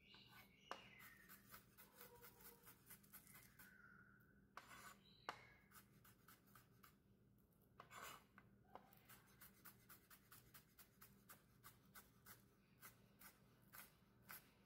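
Chef's knife chopping a white onion on a plastic cutting board: a run of light, quick taps, about three a second, with a few short pauses.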